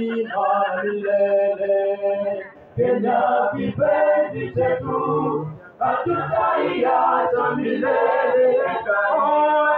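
A group of men's and women's voices singing a patriotic song together in long held phrases, with two short breaks between phrases.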